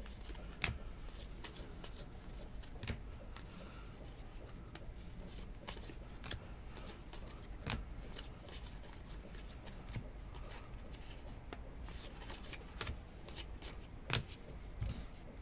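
2019 Legacy football trading cards being flicked through by hand and laid onto piles on a table: quiet, irregular clicks and slaps of card stock, with a few sharper ones now and then.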